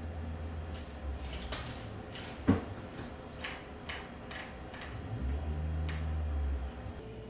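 Light clicks and taps from handling a plastic bottle of wood oil and a cloth, with one sharper click about two and a half seconds in.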